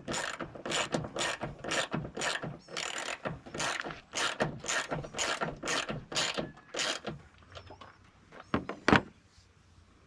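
Socket ratchet wrench clicking at about three strokes a second as the hood latch bolts are snugged up. It stops about seven seconds in. A couple of lighter taps follow, then one sharp knock near the end.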